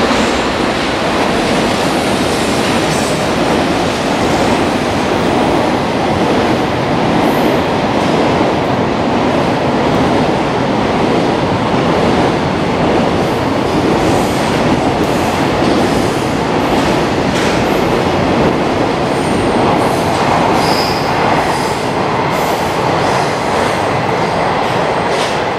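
A long container freight train passing at speed: a loud, steady rumble of wagons and wheels, with a stream of clacks as the wheels run over rail joints.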